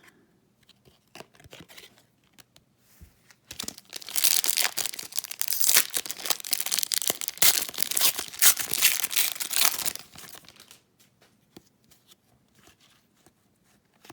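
A Upper Deck hockey card pack wrapper being torn open and crinkled: a dense burst of crackling starts a few seconds in and lasts about six seconds. Faint handling clicks come before and after it.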